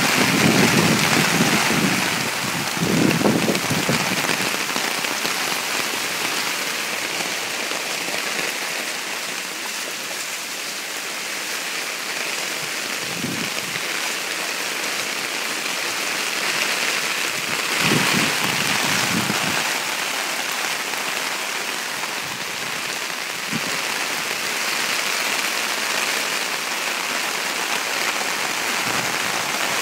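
Very heavy rain pouring down and splashing on pavement and roofs in a steady, dense hiss, with a few brief low rumbles on the microphone.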